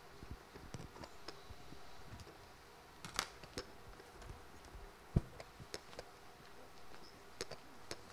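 Faint footsteps and handling noise from a handheld microphone: scattered light clicks and knocks, with a sharper click about three seconds in and a heavier thump about five seconds in.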